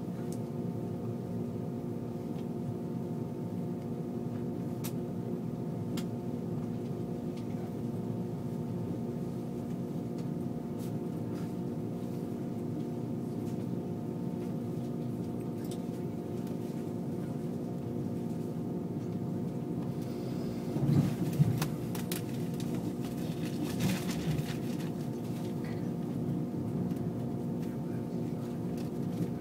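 Running noise inside a passenger car of an ICE high-speed train travelling at speed: a steady rumble under a hum of several steady tones. Brief louder rattles break in about two-thirds of the way through and again a few seconds later.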